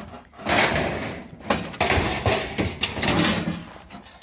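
Pieces of scrap metal thrown off a truck, crashing and clattering onto a scrap pile, four or so separate crashes in a row.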